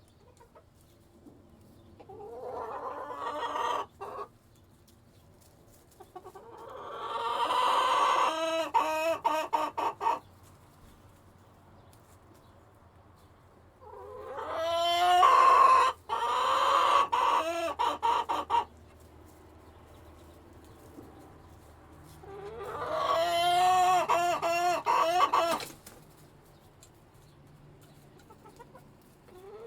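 Chickens calling: four drawn-out calls several seconds apart, each rising at the start and breaking into quick choppy notes near its end.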